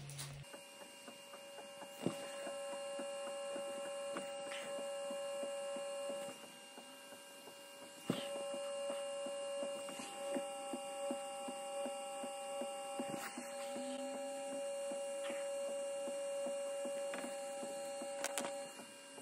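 Ortur diode laser engraver running as it engraves a wooden ceiling panel: a steady, high multi-tone motor whine with faint scattered ticks. It goes quieter for about two seconds about a third of the way in.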